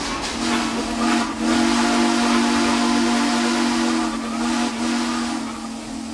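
Steam locomotive whistle blowing one long, steady chord, beginning about half a second in and easing off near the end, over a loud hiss of steam.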